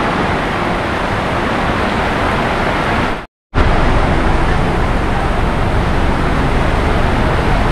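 Steady loud rush of heavy rain, with no tone or rhythm in it. About three seconds in it cuts out for a moment and comes back with a deeper rumble.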